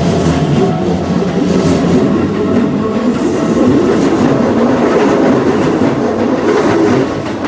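Keikyu Line electric train passing over a level crossing: a loud, steady rumble with wheels clacking over rail joints, easing off near the end. The crossing's warning bells ring steadily throughout.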